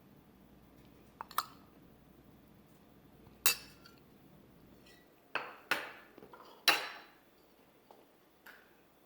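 Cutlery clinking against dishes as food is served out: a scattered series of sharp clinks with short ringing, loudest about two-thirds of the way through.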